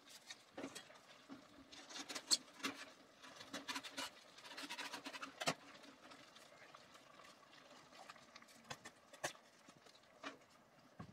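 A paper carton of tomato purée being handled and torn open: faint paper rustling and crinkling through the first half, with scattered small clicks and taps.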